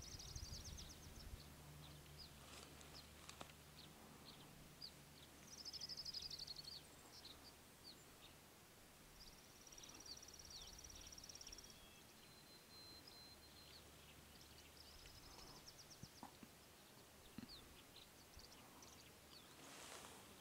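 Faint songbird song: several fast, high trills repeated every few seconds, one thin held whistle near the middle and scattered short chirps. A faint low hum runs underneath for most of the time.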